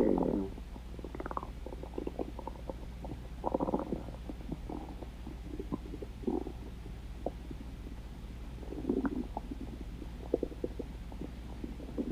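Stomach growling: irregular gurgles and rumbles, loudest at the start and again in bursts a few seconds apart, with small pops and squeaks in between.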